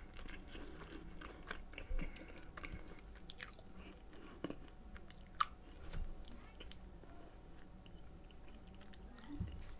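Faint close-up chewing of a thick, doughy chocolate chip cookie, with small scattered mouth clicks.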